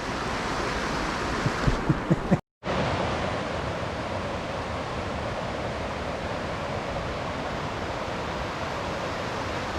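Mountain creek water rushing, a steady hiss. A few soft low thumps come just before the sound drops out for a moment about two and a half seconds in, after which the rushing water carries on steadily.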